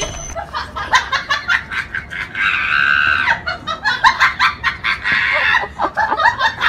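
A person laughing in quick, rapid bursts, with a drawn-out high squeal about two and a half seconds in.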